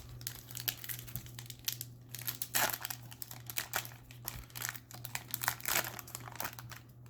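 Trading-card booster pack wrapper crinkling and crackling as it is torn open and handled, in irregular bursts that are loudest about two and a half seconds in and again near the six-second mark.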